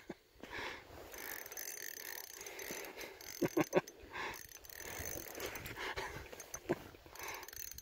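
Spinning reel on an ultralight ice-fishing rod clicking irregularly as it is worked against a hooked fish.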